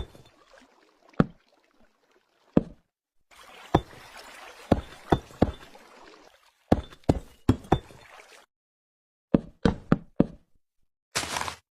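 A series of sharp knocks and clicks in irregular clusters, with a short rush of hiss near the end.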